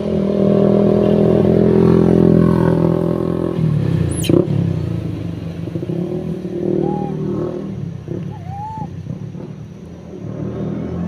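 A vehicle engine running with a steady hum that drops in pitch about three and a half seconds in, as if slowing. A brief sharp falling squeal comes just after that, and a few short chirps follow later.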